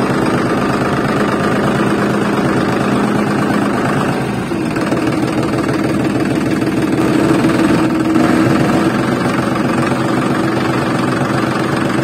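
Tractor engine running steadily with a fast, even chugging; its note shifts slightly about four and a half seconds in.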